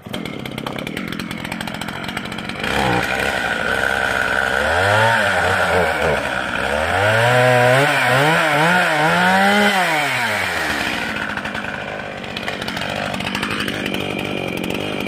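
Stihl two-stroke chainsaw starting up and idling. From about three seconds in it is revved up and down repeatedly, then settles back to idle near the end.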